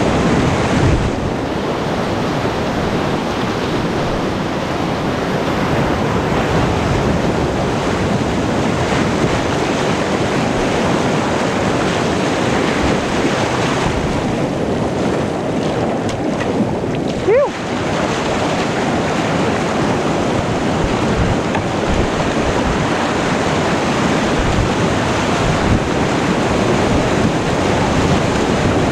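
Steady, loud rush of river whitewater rapids. About halfway through, a brief high squeak glides upward.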